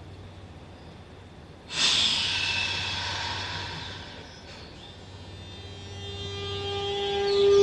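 Electric commuter train at the platform: a sudden hiss of air about two seconds in that fades away, then a steady motor whine building near the end as the train starts to pull away.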